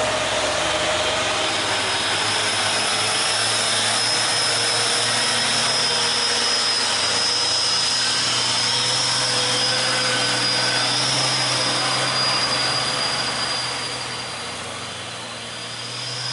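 Heavy diesel cargo trucks driving past close by, engines running loud and steady with a high whine over them. The sound fades about three-quarters of the way through as the last truck pulls away.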